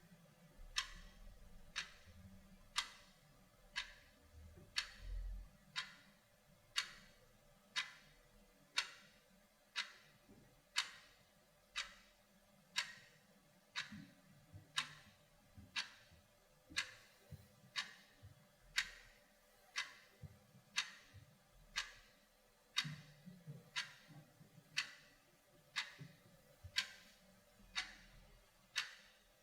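Clock ticking steadily at one tick a second, crisp clicks alternating slightly louder and softer in a tick-tock pattern.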